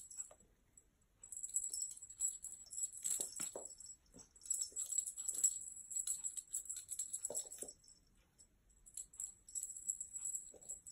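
Small bell jingling in repeated shaking bursts, with short pauses between them, and a few faint taps.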